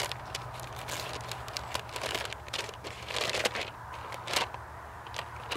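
A brown paper envelope being opened by hand: irregular crinkling and tearing of stiff paper, with a few sharper rustles about two, three and four seconds in.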